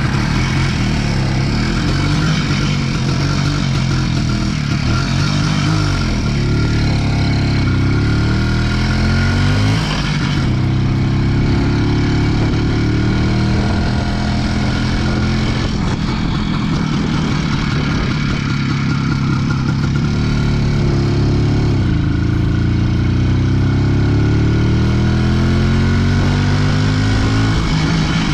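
IZh Planeta 4 motorcycle's single-cylinder two-stroke engine under way. Its pitch climbs as it accelerates and drops at each gear change, several times over.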